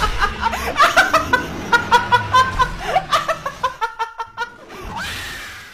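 A woman laughing hard in quick, high-pitched cackling bursts, fading near the end into a longer breathy sound.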